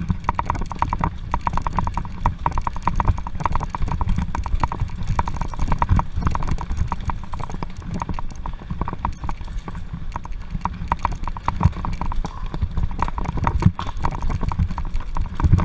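Mountain bike rattling hard over railway sleepers and ballast: a fast, uneven clatter of knocks over a steady low rumble.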